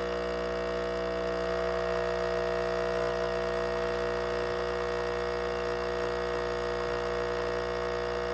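Espresso machine pump running during a shot pull: a steady, unchanging hum.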